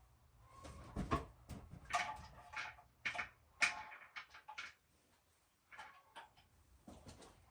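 Irregular metal clanks and knocks from hand tools and parts, some with a brief ring, while the truck's front steering and suspension are taken apart.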